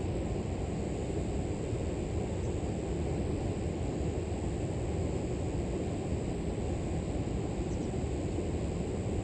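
A river flowing steadily, a continuous low rush of water, with a steady high-pitched chorus of grass insects over it.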